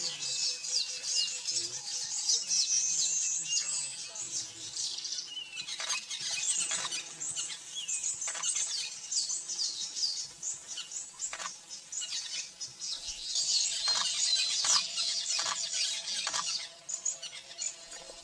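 A dense, continuous high-pitched chirping chorus, with short sharper chirps scattered through it.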